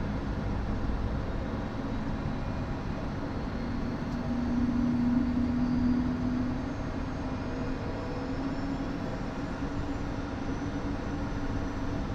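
Gulfstream G-IV's right Rolls-Royce Tay turbofan spooling up just after light-off during engine start: a steady rush with a low hum that climbs in pitch, loudest about halfway through.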